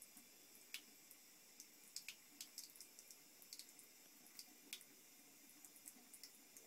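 Thin stream of water from a bathroom sink faucet trickling faintly into the basin, with scattered small irregular ticks of splashing.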